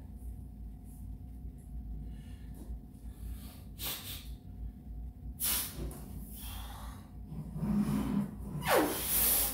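A man's forceful, straining breaths as he presses a near-maximal 200 lb bench press: sharp blasts of breath about four, five and a half and nine seconds in, with a low strained vocal sound shortly before the last.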